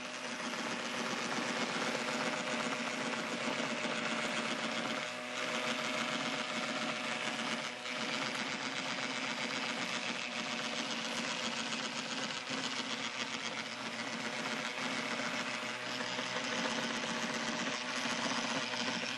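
Small homemade 12-volt robot lawn mower running on grass: its electric motors whir and hum steadily with a rattly buzz, dipping briefly a couple of times.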